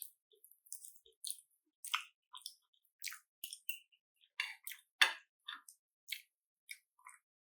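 Close-miked chewing and mouth sounds of someone eating creamy pasta and fried fish: irregular wet smacks and clicks, several a second, with the loudest one about five seconds in.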